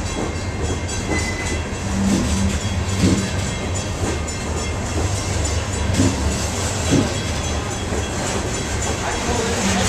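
Freight train's open-top coal hopper cars rolling past close by: a steady rumble of steel wheels on the rail, with clacks every second or so as wheels cross rail joints.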